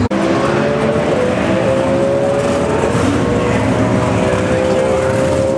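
Pro Stock drag racing engine running steadily in the staging lanes, its pitch drifting slightly up and down.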